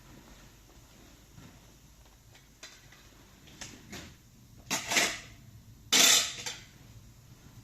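Household handling noises: a few light clicks, then two louder clattering scrapes about a second apart, like dishes or metal utensils being moved.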